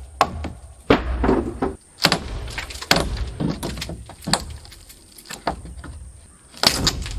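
Old roof decking being torn out by hand: irregular sharp knocks of a tool on wood, with scraping and creaking as boards are pried loose.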